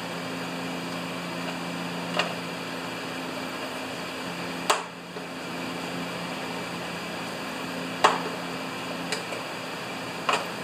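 Short sharp plastic clicks and knocks, about five at uneven spacing, as a red choke knob is pushed and worked onto the choke control of a Briggs & Stratton snowblower engine, which is not running. A steady low hum runs underneath.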